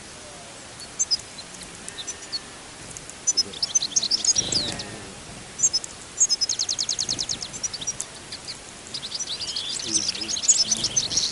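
Small songbirds chirping and twittering, with quick trills about six seconds in and again near the end.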